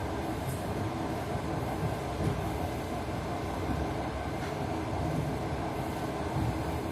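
Train wheels clattering on the rails over a steady running rumble, with a few low knocks at uneven intervals.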